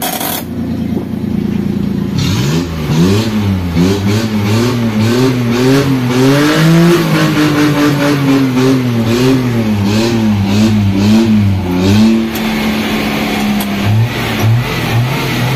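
Car engine revved again and again in quick rises and falls, heard through a home-made valved exhaust. The valve, a throttle body, is open, so the silencer is bypassed. The revs steady briefly near the end, then climb again.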